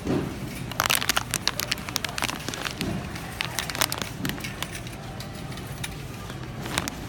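Plastic candy bag crinkling as it is handled: a run of sharp, irregular crackles starting about a second in and lasting about three seconds, then more near the end, over a steady low hum.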